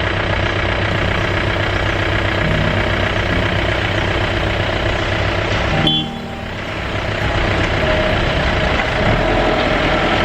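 A vehicle's engine running steadily over a rough off-road track, heard from on board; the sound dips briefly about six seconds in and then picks up again.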